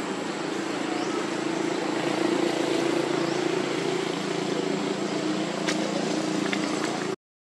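Steady drone of a motor running, with a couple of faint clicks near the end; the sound cuts off abruptly just before the end.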